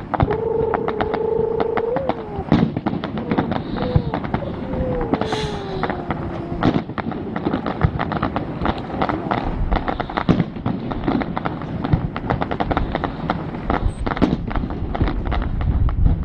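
Fireworks display: a rapid, continuous crackle of bursting aerial shells and crackling stars, with heavier booms near the end. Near the start a steady tone holds for about two seconds, and a few seconds later another tone slides down in pitch.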